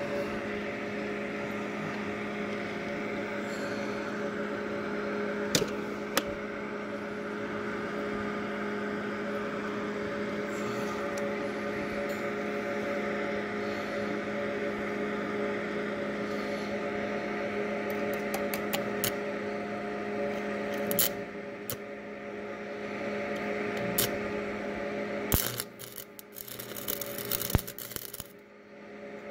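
Transformer stick welder humming steadily at idle, with a few sharp clicks. About 25 seconds in the arc is struck and crackles and sputters unevenly as the rod burns.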